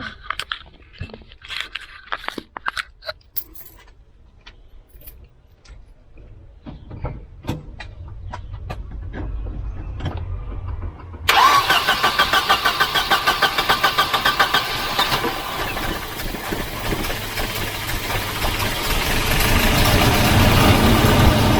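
A few clicks and handling noises, then about 11 seconds in a Volvo 240's redblock four-cylinder engine cranks on the starter with rapid even pulses, catches and keeps running, getting louder near the end. The engine now turns over and starts once corroded earth connections have been cleaned, showing the no-start was a bad ground.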